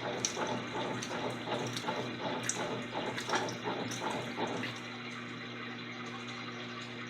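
Electrolux LTC10 washing machine with water splashing and sloshing in the tub. About four and a half seconds in, the splashing stops and a steady low mechanical hum carries on.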